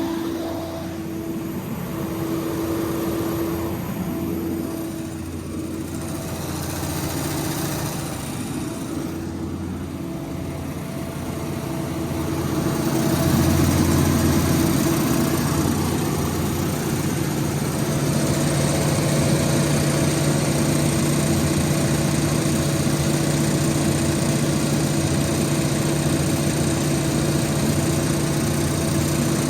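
Cummins QSL9-G2 inline-six diesel engine of a 125 kW generator set running at a steady speed, with a constant hum; it gets louder about thirteen seconds in and stays that way.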